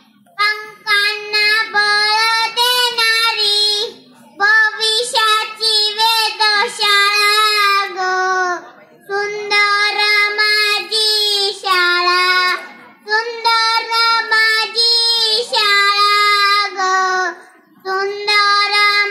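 A child singing alone without accompaniment: held, high notes in phrases of a few seconds, with short breaks for breath between them.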